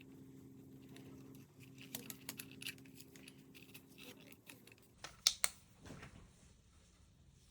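Hands handling merchandise packaging: a run of light clicks and taps, then two sharp clicks about five seconds in.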